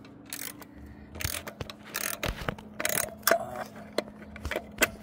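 Irregular scrapes, rubs and clicks of a hand and phone pushing in among the rubber hoses and air-intake duct under a car's hood, over a faint steady hum.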